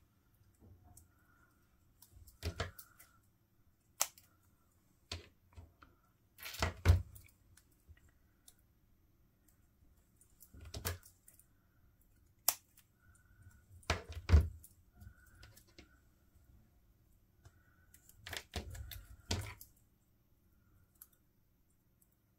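Hands working with paper pieces and craft tools on a table: scattered clicks, taps and knocks, with two louder knocks about a third of the way in and just past the middle.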